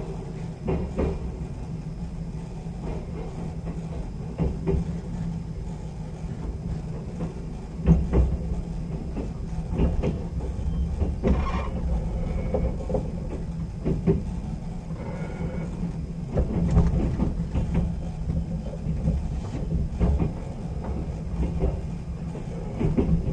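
Sleeper express train heard from inside a passenger coach as it pulls out of a station and gets under way: a steady low rumble, with wheels clacking over rail joints every second or two.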